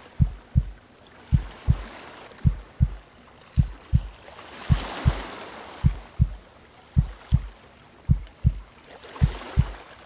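Deep heartbeat sound, a slow steady double thump (lub-dub) a little under once a second, over calm ocean waves softly washing in and fading every few seconds.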